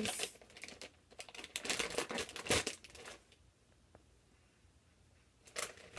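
Plastic packaging bag crinkling and rustling as a squishy toy is pulled out of it, for about the first three seconds.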